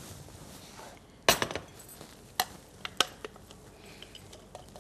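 Mixer-grinder jar knocked and tapped against a glass mixing bowl as coarsely ground corn is emptied into it: one loud knock a little over a second in, then a few lighter taps.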